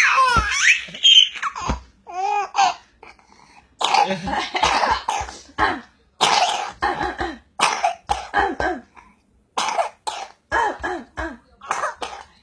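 A baby laughing in high squeals, then breaking into a long run of short coughs and laugh bursts, two or three a second, set off by laughing so hard.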